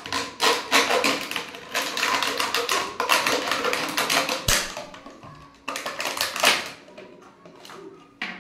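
Thin plastic bottle being cut in two, the plastic crackling and crinkling under the cut in rapid scratchy clicks, with a pause and then one more short burst of cutting about six seconds in.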